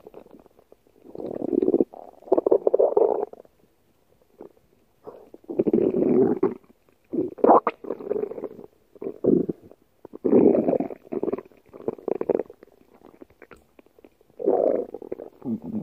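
Human stomach growling: several rumbling bursts, each a second or two long, with short pauses between.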